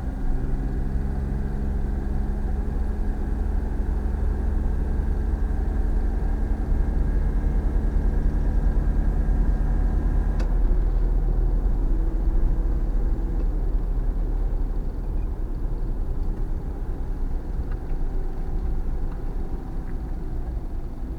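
Suzuki Every van driving: engine running with a heavy low road rumble, its engine note changing about halfway through. No suspension knock stands out, now that new stabilizer links are fitted.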